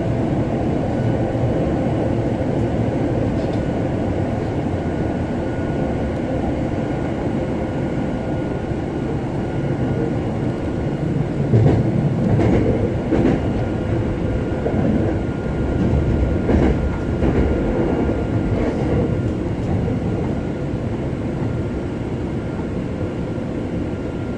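Hankyu 7000 series electric train running between stations, heard from inside the car: a steady rumble of wheels on rail, with clusters of clacks over rail joints about halfway through and again a few seconds later.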